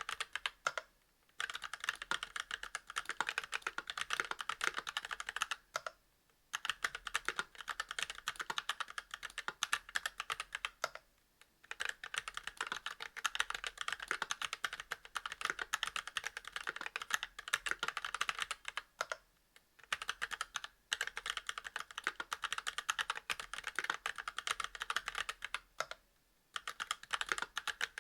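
Fast, continuous typing on a Monstargear Alu XO v2 mechanical keyboard with Kailh Box Red linear switches on a brass plate and GMK keycaps, with a dense clatter of keystrokes and a few brief pauses between runs.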